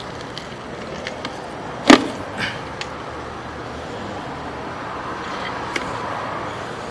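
A single sharp knock about two seconds in, followed by a few lighter clicks, over steady background noise.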